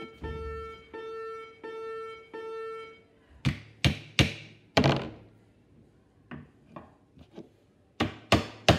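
Hammer tapping nails into a wooden board to start them: about a dozen sharp strikes beginning about three seconds in, lighter taps in the middle and harder blows near the end. Before the strikes, a repeated piano-like note plays about twice a second.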